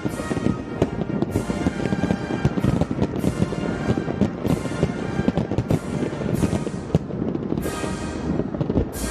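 Fireworks bursting about once or twice a second, each bang trailing off in a crackling hiss, with music playing throughout.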